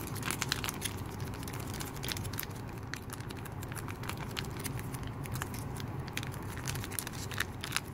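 Foil-laminate MRE cheese spread pouch crinkling and crackling as it is kneaded by hand, with irregular small crackles throughout.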